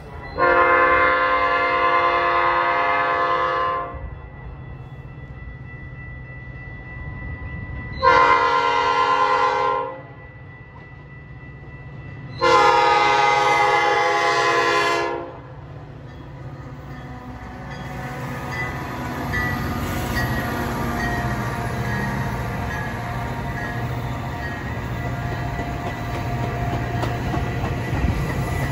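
A Metra commuter train's diesel locomotive sounds its multi-chime air horn three times as it approaches: a long blast, a shorter one, then another long one. About two-thirds of the way in, the rumble and clatter of the arriving train builds as its bilevel cars roll past.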